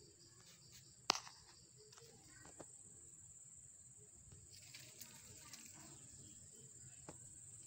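Faint outdoor ambience with a steady high-pitched insect drone, with one sharp click about a second in and a few faint taps.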